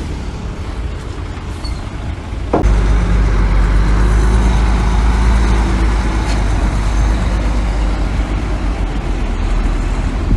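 Diesel engine of heavy earthmoving machinery running steadily. About two and a half seconds in there is a sharp knock, and the engine's low rumble then becomes much louder and stays up.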